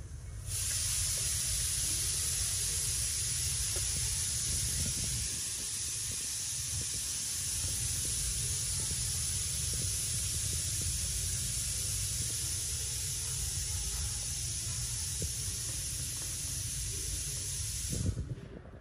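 A steady, even hiss that switches on abruptly about half a second in and cuts off abruptly near the end, over a low rumble.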